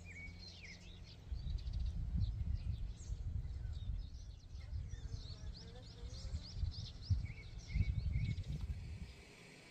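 Small birds chirping in quick high calls, over an uneven low rumble of wind buffeting the microphone that dies away near the end.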